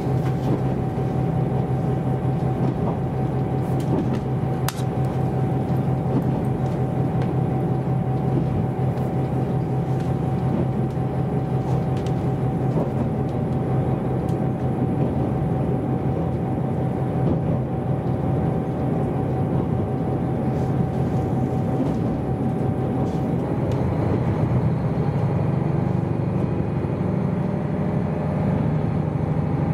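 KiHa 261 series diesel express train running at speed, heard from inside the carriage: a steady drone of engine and rail noise. A constant whine rides on it and stops about 23 seconds in, after which the sound shifts slightly.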